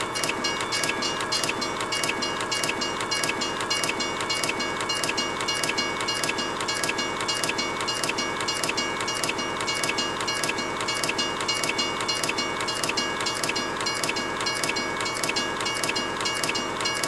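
Train running on rails: a steady noise with an even, rapid clacking rhythm and a few high steady tones.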